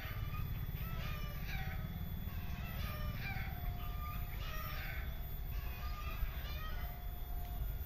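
Birds calling again and again, short chirps mixed with a few held notes, with a rooster-like crow among them, over a steady low rumble.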